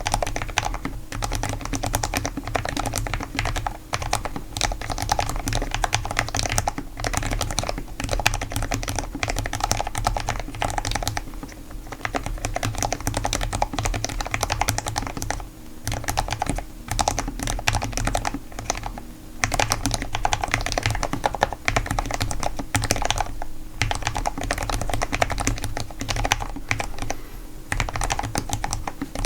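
Continuous fast typing on a Cherry Xtrfy MX 10 low-profile mechanical keyboard: dense key clacks with a few brief pauses between bursts.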